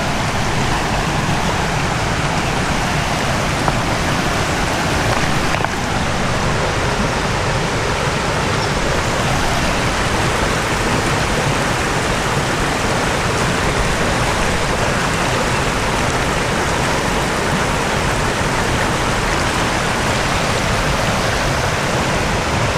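Waterfall rushing steadily: a loud, even wash of falling water.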